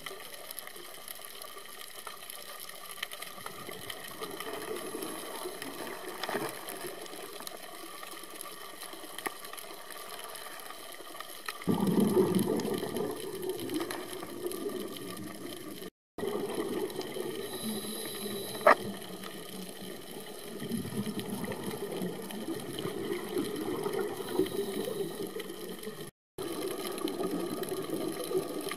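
Underwater ambience picked up by a camera in its housing: a steady hiss, with louder stretches of rushing noise and one sharp click about two-thirds through. The sound cuts out briefly twice.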